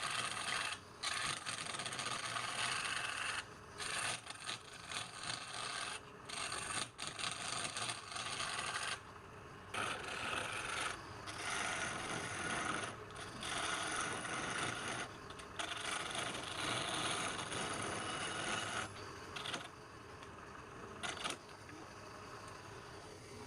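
Wood spinning on a lathe being cut or scraped by a hand-held turning tool: a steady rasping hiss that breaks off briefly every few seconds.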